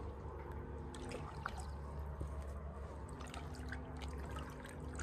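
Floodwater trickling and flowing, with small scattered splashes and drips.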